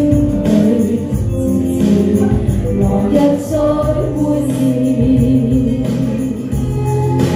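A woman singing live into a handheld microphone over a karaoke backing track.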